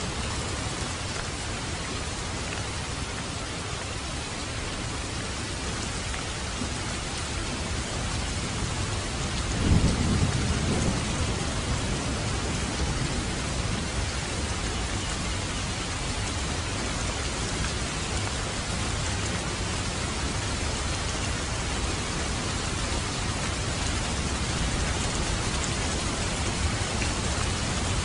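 Heavy rain falling steadily on open water, a constant hiss. About ten seconds in, a low roll of thunder swells and fades away.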